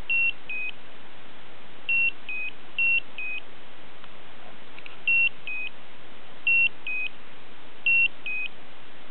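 Slendertone Men's Abs toning-belt controller beeping a two-note 'beep-bep', a higher note then a slightly lower one, six times at uneven intervals over a steady hiss. The beeping keeps going without any warning meaning the owner can find, and he suspects the pads may be too cold or dry.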